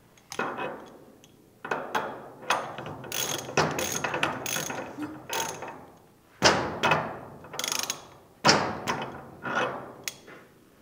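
Ratchet wrench with a deep socket running a steel jam nut down the threaded propeller shaft of a mud motor. The pawl clicks rapidly in several runs with short pauses between strokes.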